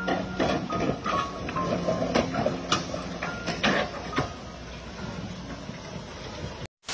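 Floodwater rushing through a log-jammed road bridge, with repeated sharp cracks and short creaks from the timber debris and the bridge railings under strain. It is loudest in the first few seconds, eases off, then cuts off suddenly near the end.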